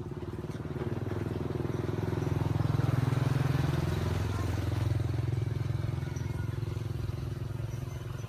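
A small motor vehicle's engine running, growing louder for the first few seconds and then slowly fading away, as it passes by.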